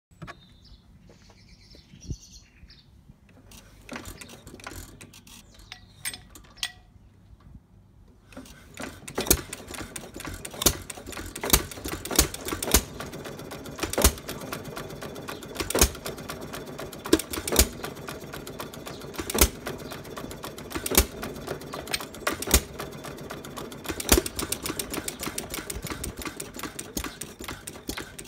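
A 1912 Fuller and Johnson farm pump engine, a hit-and-miss stationary engine, starts up about eight seconds in. It then runs with a steady clatter of its valve gear and a sharp firing bang every second or two, coasting between the bangs as it is governed. Before it starts there are only a few scattered clicks.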